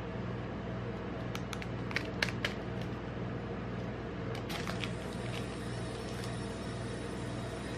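A chocolate bar's plastic wrapper being handled and opened by gloved hands: a few sharp crinkles about a second and a half to two and a half seconds in, then fainter crinkling as the wrapper end is pulled open. A steady low mechanical hum runs underneath.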